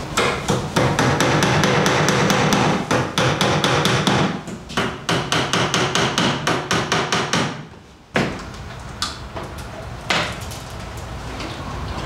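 Rapid hammering, several strikes a second, with a short pause partway through. It stops about two thirds of the way in, and a few separate knocks follow.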